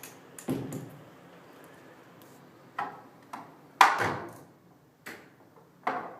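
Overhead hydraulic door closer clunking and knocking as the door swings, a series of sharp knocks with the loudest about four seconds in. The closer's arm moves up and down by itself and the closer is working loose from its mounting.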